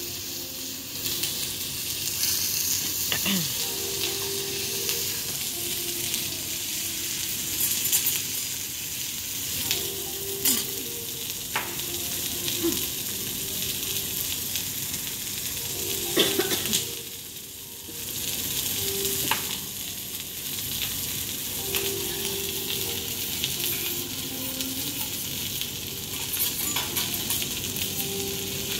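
Wagyu steaks sizzling on a hot teppanyaki griddle in a steady frying hiss, with a few sharp clicks and scrapes of metal spatulas on the steel plate.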